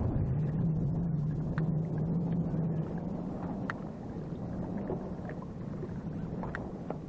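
Outboard motor of a small fishing boat running, with a steady low hum over the wash of water; the hum fades about three seconds in, and a few sharp ticks come through near the end.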